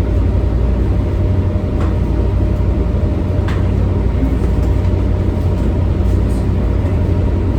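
Steady low drone of a boat's diesel engines running, with a couple of faint clicks.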